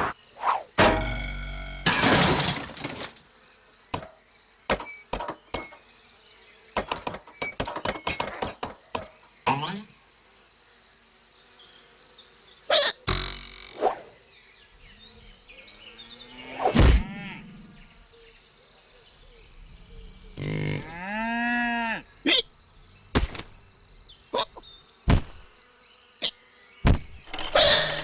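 Cartoon insect sound effects: a steady high-pitched insect trill with many sharp clicks and knocks over it, and a squeaky call that wobbles up and down about 21 seconds in.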